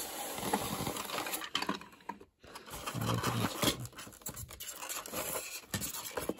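Plastic parts of a 1986 Transformers Ultra Magnus toy scraping and rubbing against a styrofoam packing insert as they are worked out of it by hand, with irregular scrapes and small clicks and a brief pause a little past two seconds in.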